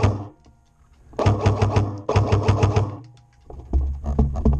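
Airsoft rifle firing rapid full-auto bursts: fast, even clatters of shots over a motor hum, each burst just under a second long. One burst ends just after the start, two more come back to back about a second in, and another begins near the end.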